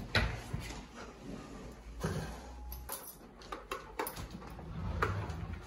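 Scattered clicks, knocks and rustling as a golden retriever on a retractable leash shifts and scrabbles about at the front door.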